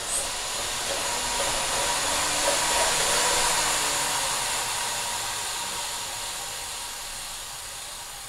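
Kurt Kinetic indoor bike trainer whirring as the bike's rear tyre spins its roller and flywheel. It rises for about three seconds as the rider speeds up past the target speed, then slowly winds down as the bike coasts after pedalling stops: the coast-down run that calibrates the trainer's inRide power sensor.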